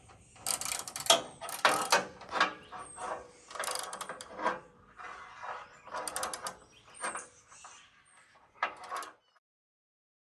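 Ratchet wrench clicking in short repeated bursts as the roof rack's mounting bolts are tightened; the sound cuts off abruptly near the end.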